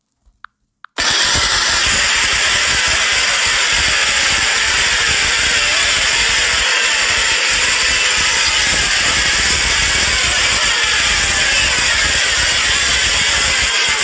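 A few faint clicks, then a loud, harsh, steady noise that cuts in suddenly about a second in and holds at one level without a break.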